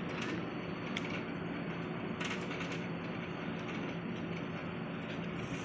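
Folded cardboard gift box being opened and unfolded by hand: a few short clicks and crinkles of the card, over a steady low background hum.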